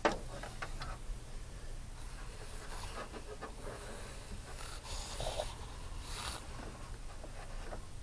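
Handling noise of hands working wires and plug connectors behind a radio: a sharp knock at the very start, then soft rustling and scattered small clicks, over a low steady hum.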